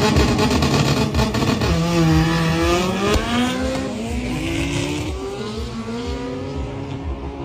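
Two drag-racing cars accelerating hard down the strip, engines climbing in pitch through several upshifts and fading as they pull away.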